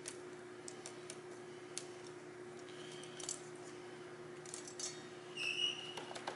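Light metallic clicks and scrapes from fingers handling a circular saw blade, with a short bright ring from the blade about five and a half seconds in.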